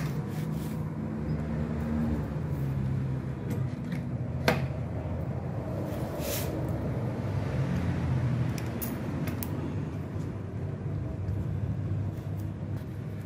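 A few sharp clicks and knocks of metal parts being handled as an AC servo motor is fitted against an aluminium CNC axis frame, the clearest about a third of the way in, over a steady low hum.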